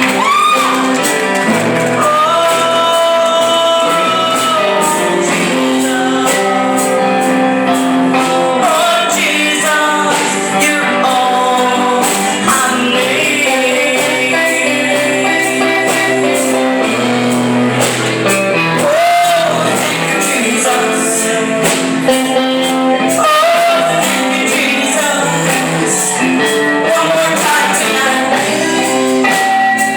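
A woman singing a song live over instrumental accompaniment, the melody moving through long held notes.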